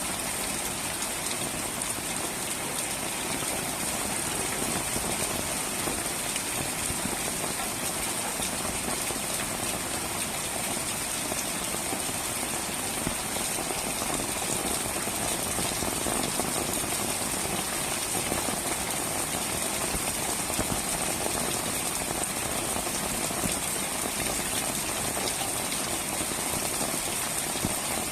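Pouring rain, a steady, even hiss of heavy rainfall with no let-up, with a thin steady high-pitched tone running through it.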